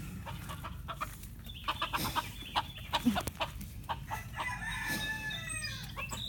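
Chickens clucking, with a rooster crowing about four and a half seconds in, its call falling in pitch at the end.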